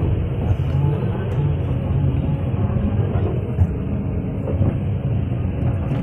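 Kobelco excavator's diesel engine running with a steady low rumble as the machine moves with its bucket held just above the ground.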